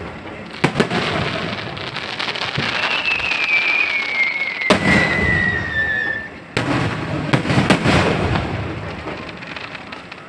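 Fireworks display: aerial shells bursting with sharp bangs, one near the middle and a quick cluster later, over continuous crackling from the showering stars. A long falling whistle runs through the middle.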